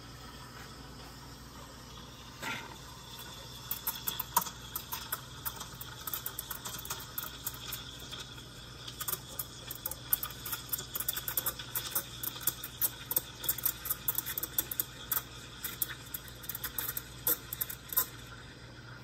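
Gaggia Classic Pro steam wand steaming milk in a stainless steel pitcher: irregular sputtering and crackling as the wand tip draws air into the milk. It starts a few seconds in and stops shortly before the end.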